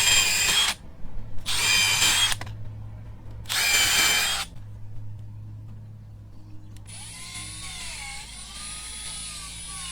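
Power drill run in three short bursts of about a second each, whining up at every trigger pull. Near the end a fainter, wavering whine comes in.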